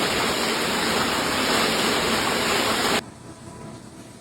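Heavy monsoon rain pouring down, a steady dense hiss. About three seconds in it cuts off abruptly to a much quieter, softer hiss.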